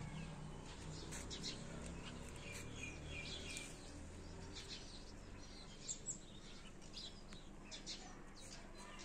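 Small birds chirping in short, scattered calls, with a quick run of repeated notes about three seconds in, over a faint outdoor background.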